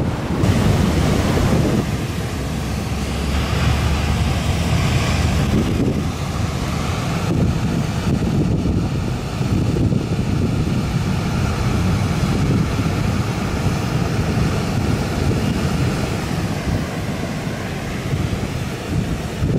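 Heavy surf whipped up by an approaching typhoon, breaking and rumbling on the shore, with strong wind buffeting the microphone. The noise swells several times.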